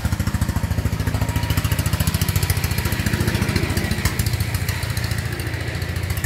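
A sawmill's engine running steadily with a rapid, even chugging pulse, not under any change of load.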